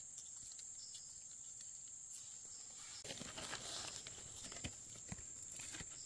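Steady high buzz of forest insects. From about halfway through, dry leaf litter and twigs rustle and crackle with a few soft thumps.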